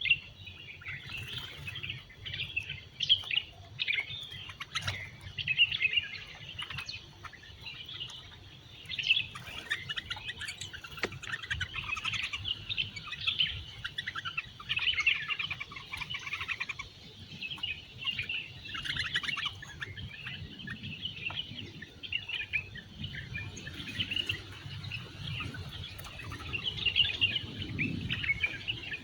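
Wild birds chirping, a busy stream of short, overlapping high calls.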